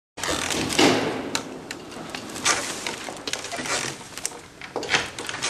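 A chair creaking and knocking as a man rocks back in it, with clothing rustling: irregular clicks and scrapes, the loudest about a second in and again near the end.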